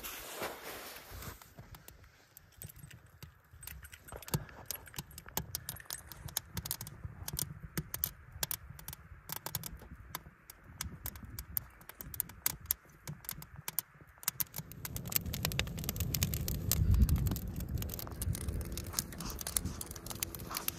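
Wood fire of evergreen branches burning in a rusty metal burn barrel, crackling with many irregular sharp snaps and pops. A low rumble rises in the last few seconds.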